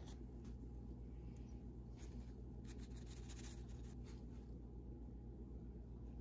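Faint scrapes and light taps of a slotted spatula against a frying pan and a paper-towel-lined plate as a cooked pancake is lifted and set down, over a steady low hum.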